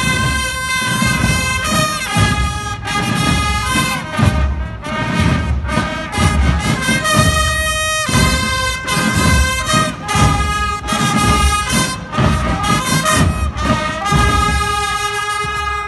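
A Swiss carnival Katzenmusik (Guggenmusik-style) marching band playing loud brass, with held notes that change every second or so over a steady drum beat.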